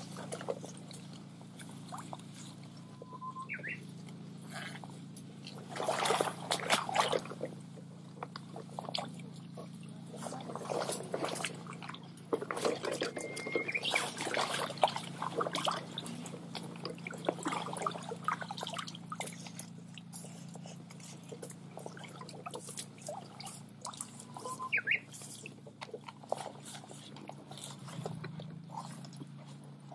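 Irregular splashing and sloshing of water as a hand net is worked through a shallow stream, over a steady low hum. A Japanese bush warbler sings short whistled phrases three times, each ending in a quick rising note.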